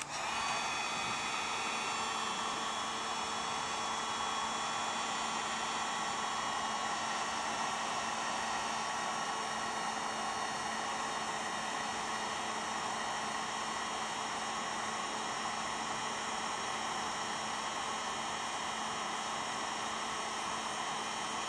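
Electric heat gun blowing steadily, a fan rush with a steady motor whine, shrinking heat-shrink tubing over a crimped battery cable lug.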